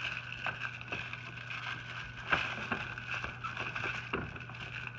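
Light taps and knocks from puppies scrambling around a pen, the strongest about two seconds in, over a steady background hum.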